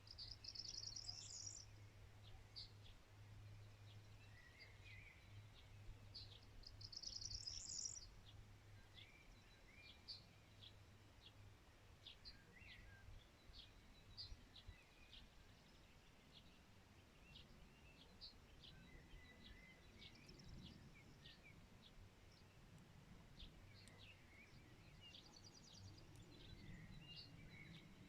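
Faint songbirds calling: many short, high chirps, with a rapid high trill near the start, another about seven seconds in, and a third near the end. A faint low hum runs under the first half.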